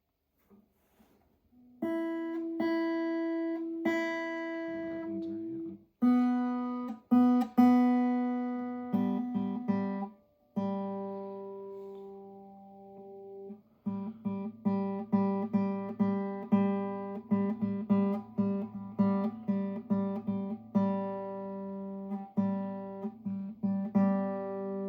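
Guitar being tuned: single strings plucked and left to ring, one pitch at a time, moving to a new string every few seconds. About halfway through, one string is plucked again and again in quick succession while it is brought into tune.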